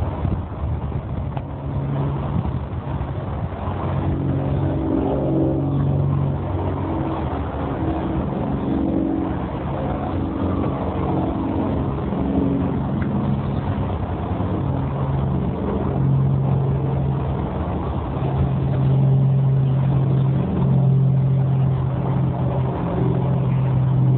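An engine running steadily throughout, its drone stepping up and down in pitch now and then.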